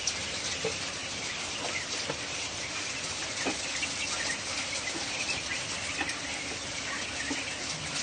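Dense, steady chatter of a large flock of caged quail chirping and calling, with scattered light clicks.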